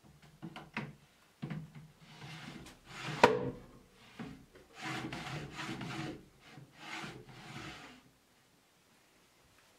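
Wood rubbing and scraping against wood in four strokes of about a second each, after a few light clicks, with a sharp knock about three seconds in.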